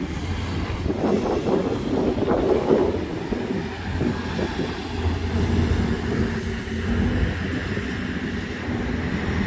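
Outdoor ambient noise: a steady low rumble with a noisy haze over it, the kind made by wind on the microphone and traffic.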